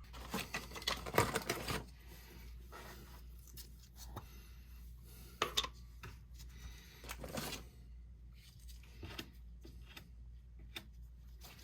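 Angle valve parts being handled by hand: a burst of scraping and clicking in the first two seconds, then a few separate clicks and taps.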